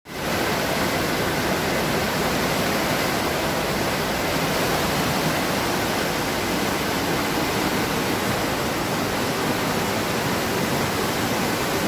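Flash-flood water rushing down a street in a steady, loud, unbroken rush.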